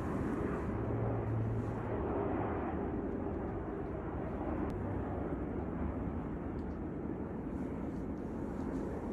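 Steady low drone of a distant airplane's engines overhead, with a faint steady hum in it.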